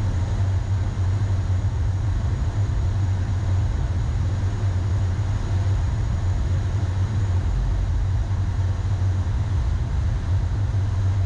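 Steady low rumble of a Boeing 737-800's flight deck on short final: airflow and engine noise heard inside the cockpit, even and unchanging throughout.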